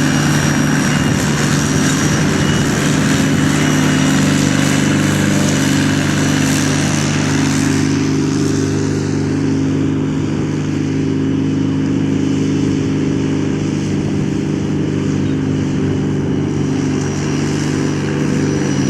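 A vehicle engine running steadily with a constant low hum, with no revving or change of speed.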